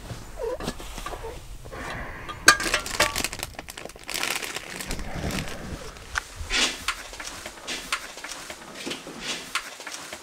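Close rustling of clothing and gear being handled in a small room, with irregular clicks and knocks from things bumping the camera.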